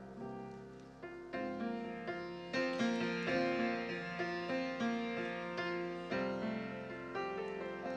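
Piano playing a gentle instrumental tune, notes and chords struck one after another and left to ring and fade.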